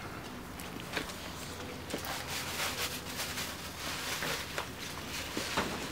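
Footsteps and shuffling of a person and a leashed dog moving along, a run of soft, irregular scuffs.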